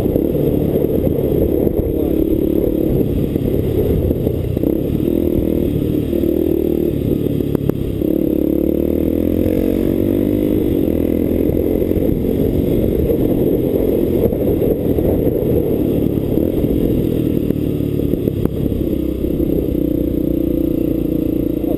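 Motorcycle engine running steadily under way, its pitch rising and falling as the speed changes around the middle and near the end.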